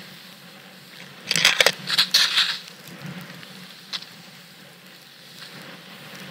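Snowboard sliding through powder snow with a steady hiss, and a louder crunching scrape of snow lasting about a second, starting a little over a second in.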